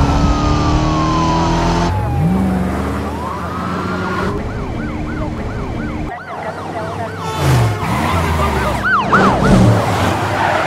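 Police sirens yelping and wailing over speeding car engines in a high-speed chase. An engine's pitch falls away at first, another revs up about two seconds in, and fast up-and-down siren yelps come in bursts, with a siren rising into a wail near the end.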